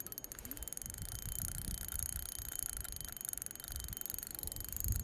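A spinning reel working under a hooked fish, with a fine, rapid ticking, over low, uneven rumbling.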